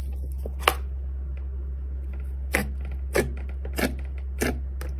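Sharp clicking pops from a large mass of glossy slime being pressed and squeezed by hand, about five of them spaced half a second to a second apart, over a steady low hum.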